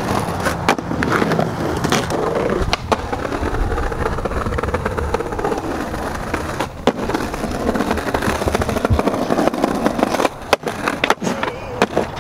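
Skateboard wheels rolling over brick paving, broken by sharp clacks of the board hitting ledges and the ground several times, with a cluster of them near the end.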